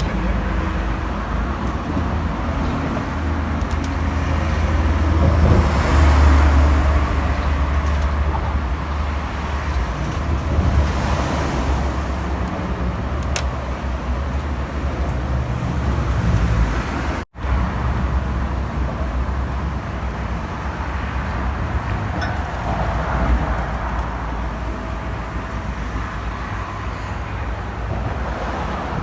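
Steady road-traffic noise from vehicles passing over a bridge, a constant deep rumble with hiss. It cuts out for an instant about 17 seconds in.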